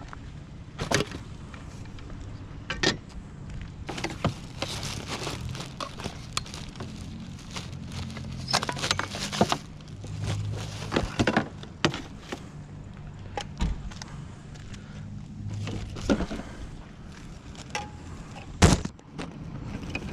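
A vehicle engine running steadily and low, under a string of irregular clunks, knocks and rattles. The loudest knock comes near the end.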